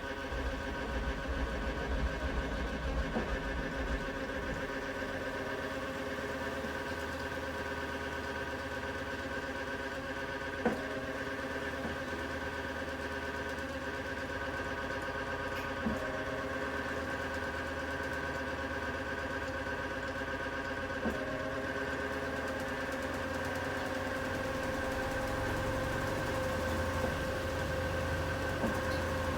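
A machine running steadily with a constant whine made of several tones, and a sharp click roughly every five seconds. It is the abnormal noise the owner is recording, which has come back for a third time.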